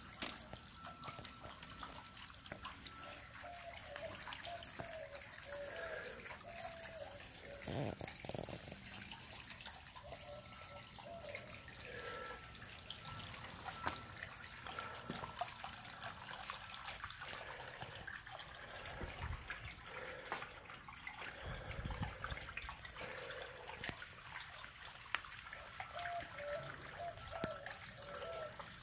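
Water welling up through a honeycombed limestone boulder in a disappearing fountain and trickling down over the stone, with many small drips and splashes.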